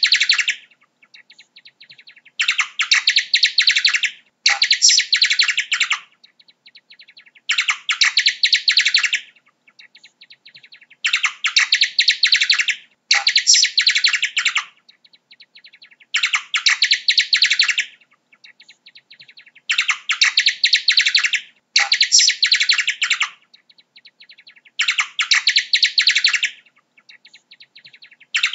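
Bat calls: bursts of rapid, high-pitched chittering clicks, each lasting one to two seconds, coming about ten times with softer chittering in between.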